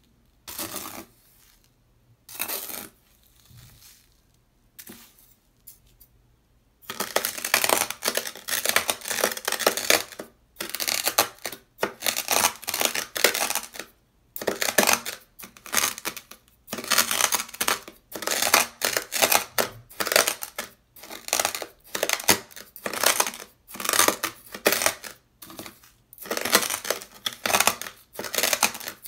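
Dry beach sand crunching under a white ceramic knife blade that is pressed and scraped through it on sandpaper. There are only a few soft scrapes at first, then from about seven seconds in come loud crunches in quick repeated strokes with short gaps.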